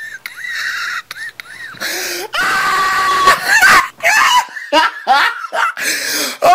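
A person's high-pitched wheezing laugh: short squeals two or three times a second, then louder, longer laughing and shrieking from about two seconds in.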